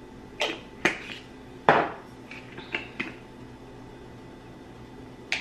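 Kitchen handling sounds as seasoning is added to a bowl: a string of sharp clicks and knocks from spice containers and the bowl on the counter, the loudest about a second and a half in, then one more near the end.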